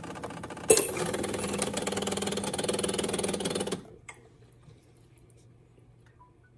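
Decent DE1Pro espresso machine at the end of an espresso shot: the pump hums steadily, then about a second in a sudden loud rushing hiss over the hum starts. It runs about three seconds and cuts off as the flow stops, leaving a few faint drips and ticks.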